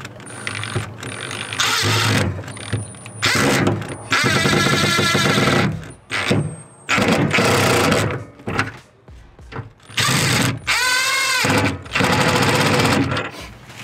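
Cordless impact driver hammering lock nuts tight onto carriage bolts, in repeated bursts of one to two seconds with short pauses between, the motor whine rising and falling once near the end.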